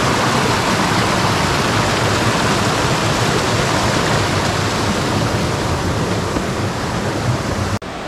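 Mountain stream water gushing over rocks: a loud, steady rushing noise that breaks off for an instant near the end.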